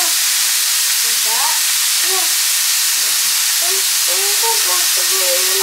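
Hamburger meat frying in a pan, a steady sizzling hiss, with faint voices over it.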